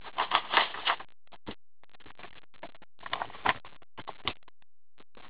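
Cards and card stock being handled with gloved hands: a rustle in the first second, then scattered light clicks and short rustles with gaps between them.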